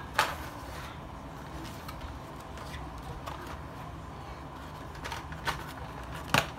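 Cardboard box of a rOtring drawing set being handled: a sharp knock as it is picked up, then light rubbing and a few clicks as it is turned over, and another sharp knock near the end, over a steady low hum.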